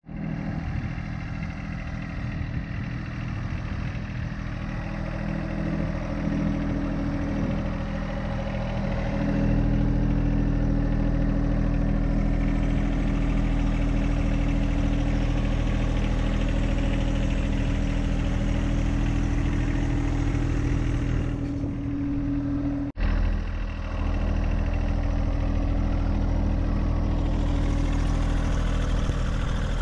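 John Deere 1025R subcompact tractor's three-cylinder diesel engine running steadily, getting louder about a third of the way in. It drops out for a moment about three quarters of the way through, then runs on at the same pitch.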